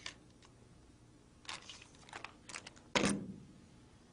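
Light metallic clicks from a single-action revolver and a cleaning rod being handled, then one sharper knock about three seconds in.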